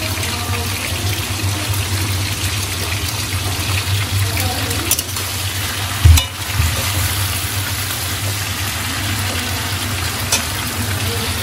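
Chopped capsicum and onion sizzling in an aluminium kadai while a metal spatula stirs them, over a steady low hum. A few clicks and scrapes of the spatula on the pan, with the loudest knock about six seconds in.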